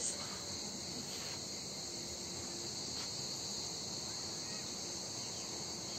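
Cicadas in the trees droning steadily, one continuous high-pitched buzz.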